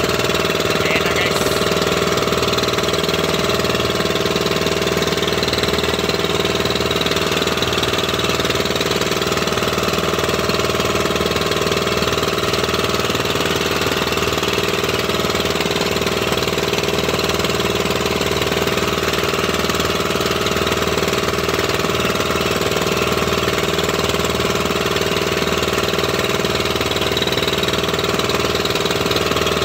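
Engine of a motorized outrigger fishing boat (bangka) running steadily at an even, unchanging speed.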